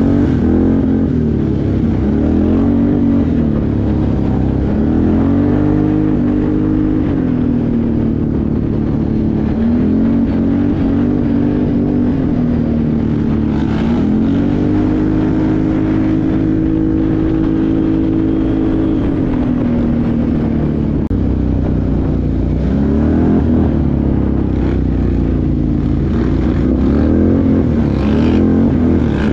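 ATV engine running under way from the rider's seat, its pitch rising and falling with the throttle several times. It is held high for several seconds in the middle, then eases off.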